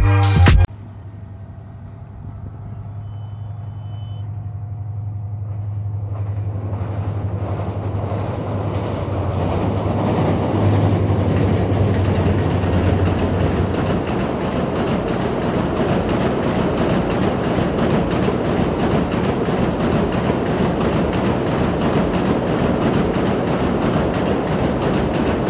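Bangladesh Railway diesel-hauled passenger train crossing a steel truss bridge: the locomotive's low engine hum grows louder over the first ten seconds and stops about fourteen seconds in. The steady rumble of the passing coaches' wheels on the rails carries on after it. Intro music cuts off just under a second in.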